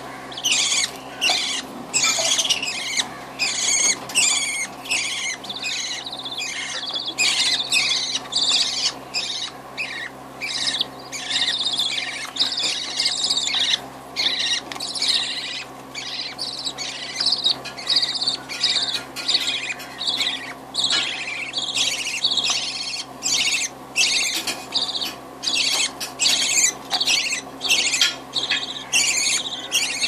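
Budgerigars chirping: an unbroken, rapid run of short, high chirps, several a second.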